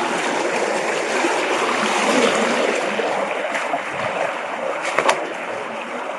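Steady rushing of a shallow mountain stream, with a brief sharp sound about five seconds in.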